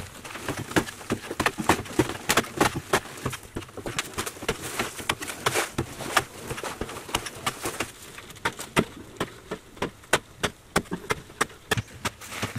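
Hand digging in packed earth: a run of irregular scraping strikes and knocks of a hand tool in the soil, several a second, thinning out near the end to fewer, sharper clicks.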